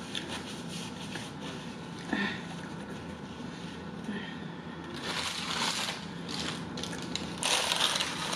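Paper churro bag rustling and crinkling as it is picked up and opened, in two louder spells of about a second each in the second half.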